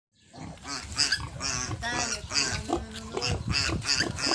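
Piglets grunting and squealing, short calls in quick succession, two or three a second.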